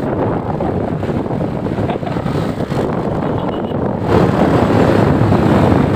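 Wind rushing over the microphone together with the engine and road noise of a Bajaj Pulsar 220 single-cylinder motorcycle riding at speed. It gets louder about four seconds in.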